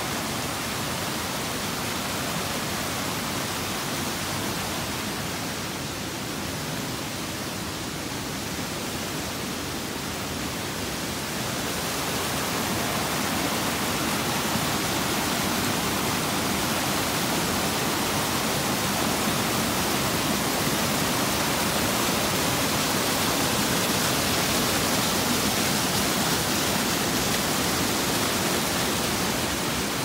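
Steady rush of a mountain stream cascading over rocks as white water, growing a little louder about twelve seconds in.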